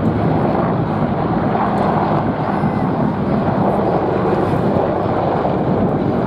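Apache attack helicopters flying low on an attack run: a steady, loud noise of turbine engines and rotors with no distinct shots or bangs.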